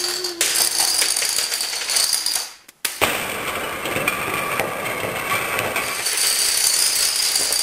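Rows of small plastic dominoes toppling one after another in a rapid, continuous clatter, first on a wooden table and then on a wooden floor, broken off briefly about three seconds in.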